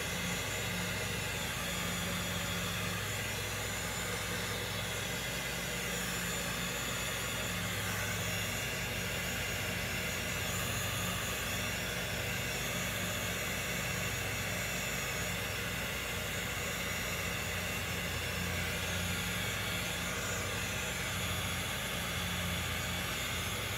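Small craft heat gun running steadily, its fan blowing with an even hiss over a low hum, used to pop bubbles in freshly poured epoxy resin.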